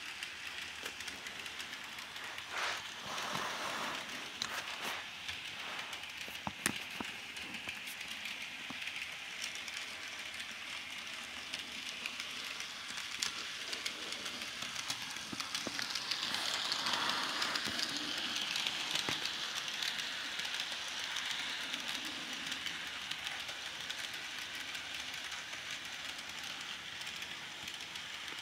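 Bachmann N-scale Durango and Silverton 0-6-0 model steam locomotive running around the track with its coaches, a steady high whir of the small motor and wheels on the rails. It grows louder as the train passes close by about halfway through, with a few sharp clicks in the first seven seconds.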